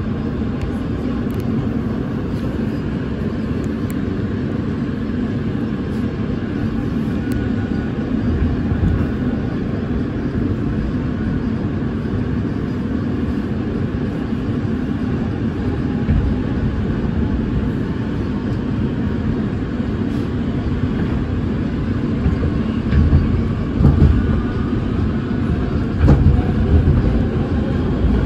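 A Siemens-equipped R160B subway train running, heard from inside the car: a steady rumble of wheels on rail with a faint motor whine shifting in pitch. The rumble gets louder and bumpier over the last few seconds.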